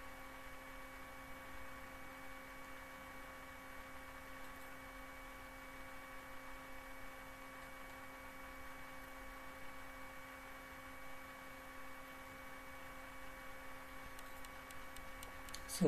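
Steady electrical hum in the recording chain, a buzzy tone with several overtones over a faint hiss, with a few faint clicks near the end.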